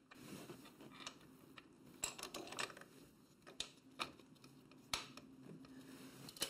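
Faint, irregular light clicks and knocks, about eight of them, as the lower shock bolt is set in place by hand at a motorcycle's rear shock mount.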